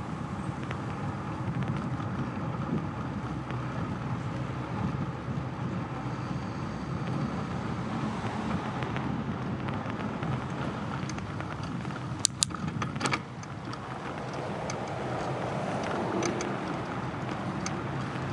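Bicycle rolling along a paved path: steady tyre rumble and wind on the microphone, with a short burst of sharp clicks and rattles about twelve seconds in.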